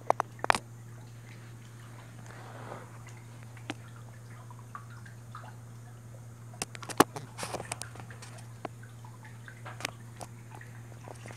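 Steady low hum of aquarium equipment with water dripping, and scattered sharp clicks and taps, a cluster of them about seven seconds in.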